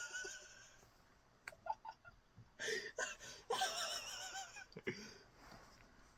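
A person's breathy, wheezing laughter in several bursts, one of them a long wavering squeal, with a few small clicks about a second and a half in.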